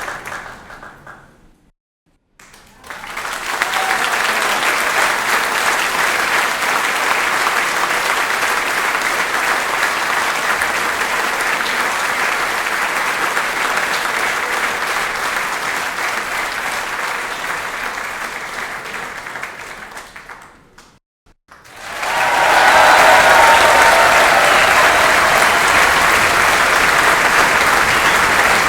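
Audience applause in three separate recordings: one fading out in the first second or two, a gap of silence, a long even stretch of clapping that fades away, another short silence, then a louder round of applause.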